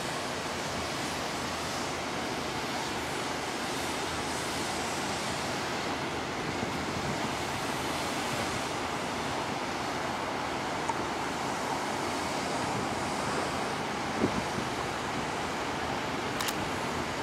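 Steady rushing outdoor street ambience with wind and distant traffic. A small knock comes late on, and a faint click comes near the end.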